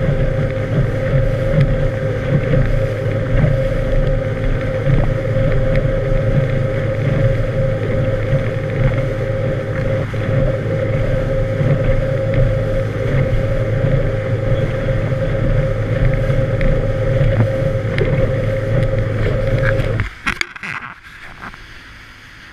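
A boat's motor running steadily at speed with a constant hum and the rush of wake spray along the hull. About 20 seconds in the sound drops off suddenly to much quieter water and wind.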